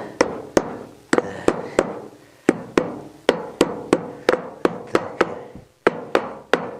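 Steel hammer tapping a new bearing into a wheelbarrow wheel's hub to seat it: a run of sharp taps, about three a second, each with a short metallic ring, with two brief pauses.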